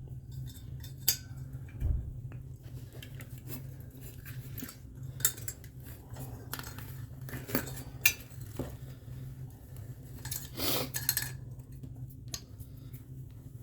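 Irregular metallic clinks, taps and scrapes of hand tools working at the inducer blower wheel seized on the inducer motor shaft, with a few sharper knocks, over a steady low hum.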